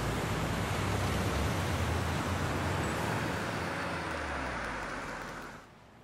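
Steady wash of city traffic noise that fades out near the end.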